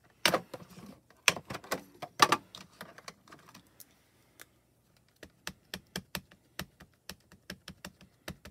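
Light plastic clicks and knocks as a clear stamp and die cut are handled in a stamp-positioning tool. From about five seconds in comes a steady run of quick light taps, about four a second, typical of a mini ink cube being dabbed onto a clear stamp to ink it.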